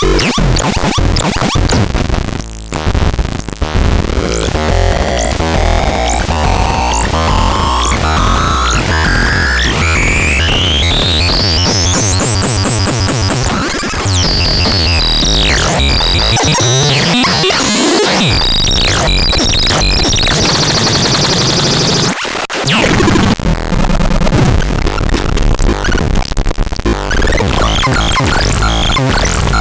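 Harsh, noisy electronic synthesizer music: a dense distorted texture over a steady low bass, with one long sweep rising in pitch through the first half. It drops out briefly twice, once near the start and again about three quarters of the way through.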